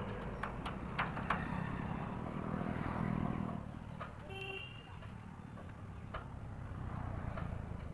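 Outdoor background noise: a steady low rumble, louder for the first three and a half seconds, with a few light clicks and a brief pitched tone about four seconds in.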